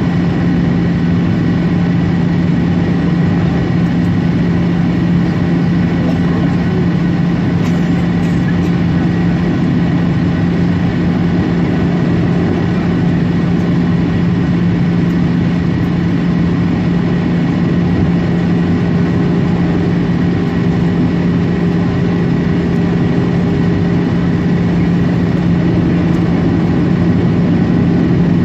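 Cabin noise of a twin-engine jet airliner heard from a window seat beside the wing: the jet engines and airflow make a steady drone with a strong low hum, rising slightly in level near the end, as the aircraft descends through cloud on approach.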